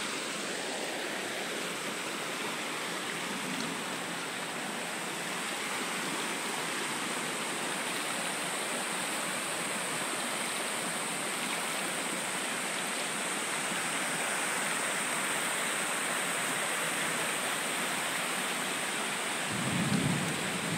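Steady rush of a flooded creek pouring over a concrete causeway, mixed with the hiss of heavy tropical rain. A low rumbling comes in near the end.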